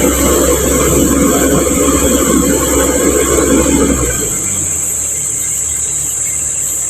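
Komatsu PC135 excavator's diesel engine running hard, easing off and dropping lower about four seconds in.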